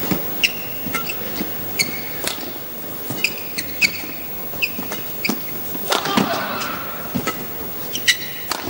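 Badminton rally: sharp racket strikes on the shuttlecock and short high squeaks of players' shoes on the court mat, over a steady background hum from the crowded hall.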